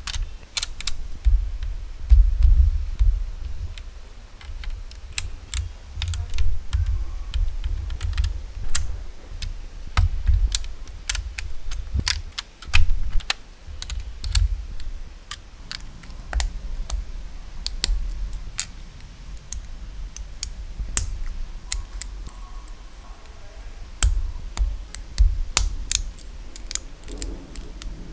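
Plastic building bricks and plates being handled and pressed together on a brick-built tank model: many sharp, irregular clicks and taps, with dull low thumps as the model is moved about.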